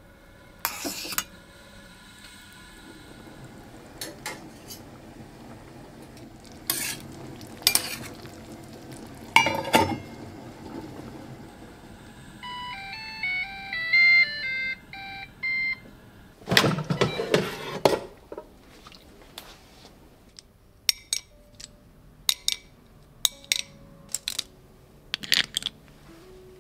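Dishes and utensils being handled: scattered clinks and knocks of crockery and metal, with a longer clatter about two-thirds of the way through. About halfway through, a short tune of electronic beeps plays.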